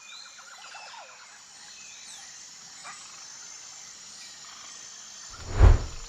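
An elephant trumpets once: a short, loud call about five and a half seconds in. Birds chirp and insects buzz in a steady high drone throughout.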